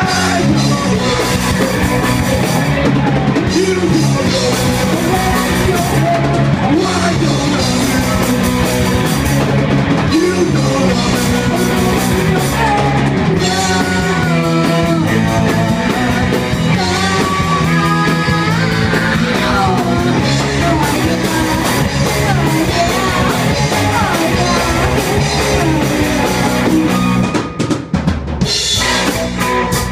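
Punk rock band playing live: electric guitar, bass guitar and drum kit, with a singer's vocals over them. The music kicks in abruptly at full volume at the start.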